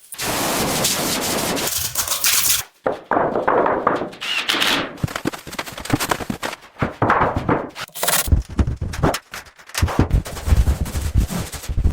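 A quick chain of restoration work sound effects: a long scraping, hissing burst, then rapid rattling knocks and clicks, and heavy low thuds in the second half, each lasting only a second or two.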